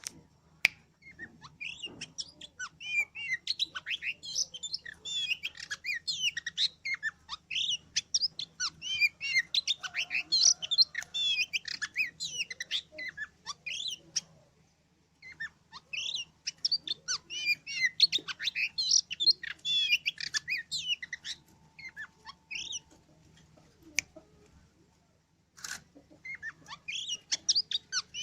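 Oriental magpie-robin (kacer) singing a fast, varied song of whistles and chirps in long unbroken runs, with two brief pauses, about halfway and near the end.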